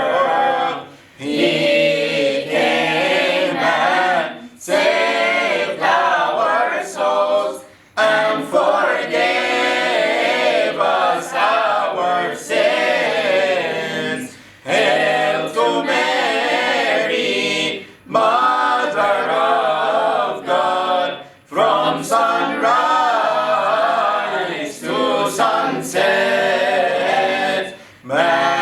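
A group of children's and adults' voices, led by a priest, singing a Coptic Christmas hymn to Mary in phrases, each ending in a brief pause before the next.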